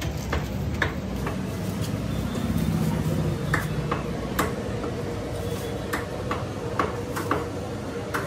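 Irregular sharp knocks of a butcher's cleaver chopping a goat's head on a block, over a steady low hum.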